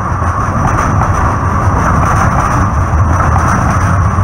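Two-car Breda light rail train rolling past at close range, a steady loud rumble of steel wheels on the rails.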